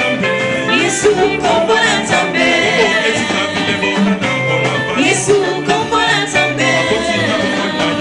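A woman singing a gospel worship song into a microphone, accompanied by a live church band on keyboard, electric guitar and drums.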